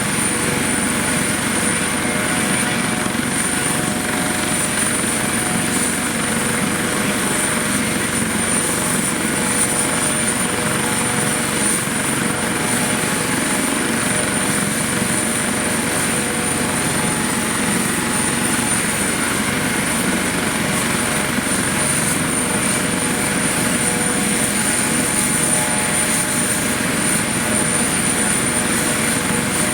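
Eurocopter AS365 Dauphin rescue helicopter's twin turbines and rotor running steadily, with a constant high turbine whine over the rotor noise.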